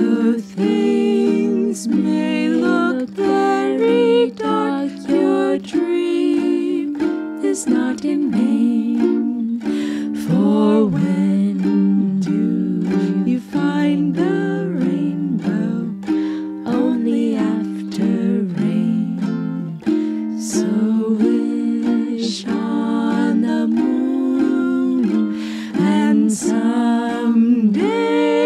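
Ukulele playing chords as accompaniment while women sing a cheerful song, with the voices moving note to note over the steady strumming.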